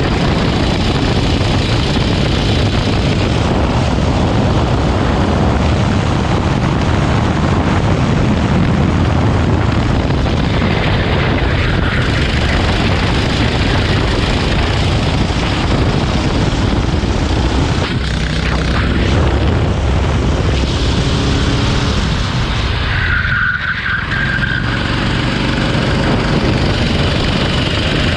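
Rental go-kart engine running hard at racing pace, heard from onboard, continuous and loud. The level dips briefly about three quarters of the way through.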